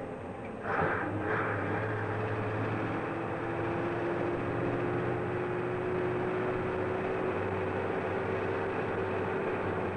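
Scania DS14 V8 diesel truck engine heard from the cab under way: two short noisy bursts about a second in with the gear change, then the engine pulls steadily with its note slowly rising.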